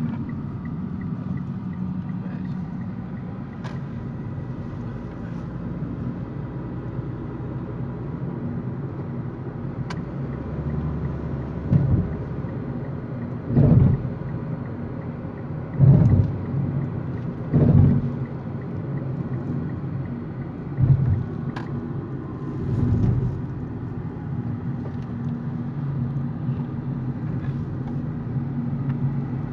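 Car interior driving noise: a steady low engine and road rumble, broken about halfway through by half a dozen short, louder low bursts.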